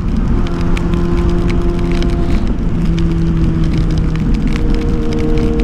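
Yamaha FZ6 Fazer's inline-four engine running at a steady pitch while riding in heavy rain, with the hiss of wet road and wind and many sharp raindrop ticks.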